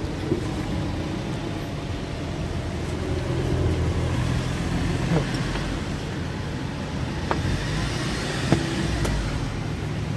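Steady low vehicle rumble with a few sharp metallic clicks while a new driveshaft is worked into a Renault Master 3 van's gearbox.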